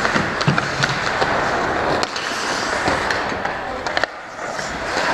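Ice hockey skates scraping and carving on the rink ice close to the net, with sharp clicks of sticks and puck scattered throughout; the clearest cracks come about two seconds and about four seconds in.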